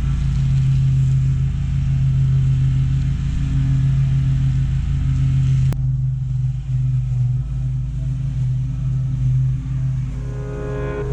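Engine running steadily with a strong low hum, broken by a sharp click about halfway through. Music begins to come in near the end.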